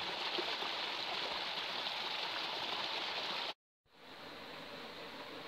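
Shallow rocky stream rushing steadily over stones. About three and a half seconds in it cuts off, and a quieter steady flow of water through a stone-edged pool fades in.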